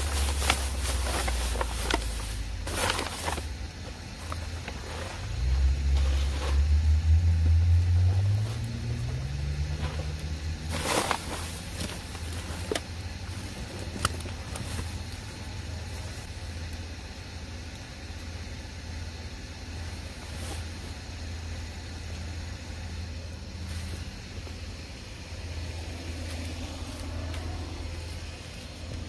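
Plastic trash bags crinkling and rustling as they are handled. From about five seconds in, a vehicle engine rises steadily in pitch as it accelerates, the loudest sound here, with a single knock soon after. A low steady engine hum runs underneath.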